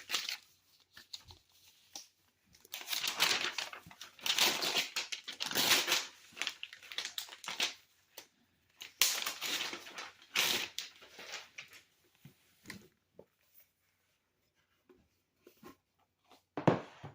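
Packaging of a Surface Pro 8 box being torn and opened by hand: several stretches of tearing and rustling, then scattered light clicks and knocks, with a sharper knock near the end.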